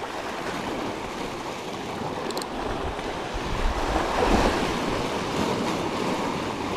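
Sea waves washing and breaking against shoreline rocks, with wind buffeting the microphone; the surge swells and splashes about four seconds in. A single brief tick about two seconds in.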